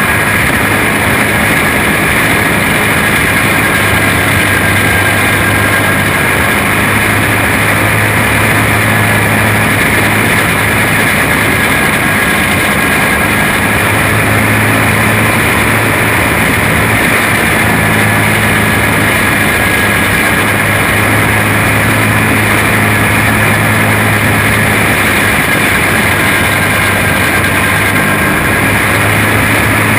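Quarter midget race car's single-cylinder flathead engine running steadily at racing speed, heard on board the car.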